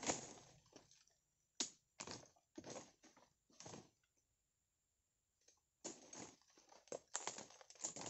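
Irregular crunching and rustling of dry palm debris and undergrowth as someone moves about at the foot of an oil palm, with a quiet pause in the middle; no chainsaw running.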